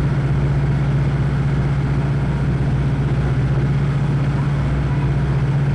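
Boat engine running at a steady speed, a constant low drone over a steady rushing noise.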